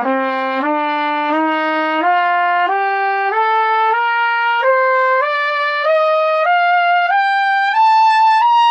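Trumpet playing an ascending two-octave C scale, evenly spaced separate notes at about one and a half a second, reaching the top note near the end. The higher it climbs, the weaker its upper overtones become.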